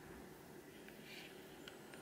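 Near silence: quiet room tone with a faint steady hum and a few faint ticks.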